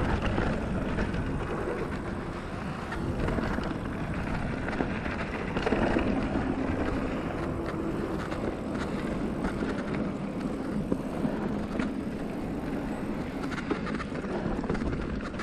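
Felt Decree 3 mountain bike rolling fast down a dry dirt and gravel trail: a steady rumble of the tyres on the loose ground, with frequent small clicks and rattles from the bike over the rough surface.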